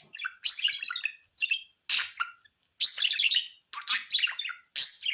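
Budgerigar chirping and warbling in quick, high-pitched bursts of chatter broken by brief pauses.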